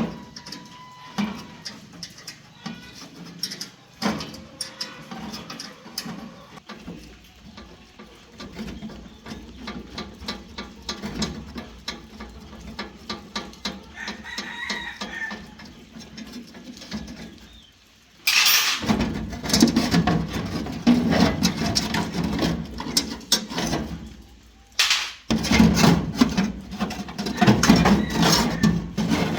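Chickens clucking, with a rooster crowing once partway through; in the second half a loud, dense rushing noise starts suddenly and runs on, broken briefly by a short gap.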